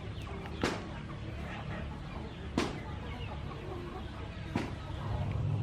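Chickens clucking in the background, with three sharp clicks about two seconds apart over a steady low hum.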